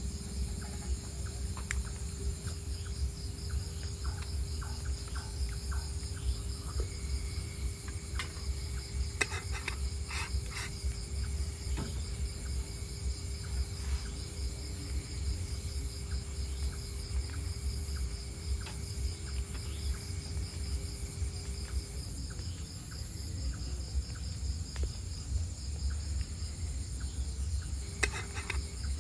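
Crickets and other night insects chirring steadily in a continuous chorus, over a low steady rumble, with a few light clicks of cookware being handled about ten seconds in.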